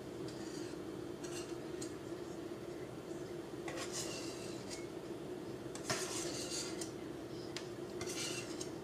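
Kitchen utensils and dishes clinking and scraping in four short bursts, with a sharp clink about six seconds in, over a steady low hum.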